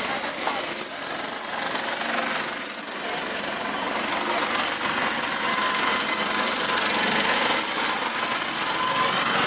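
Pawan Hans helicopter's turbine and rotors running close by during its landing, a steady rushing noise.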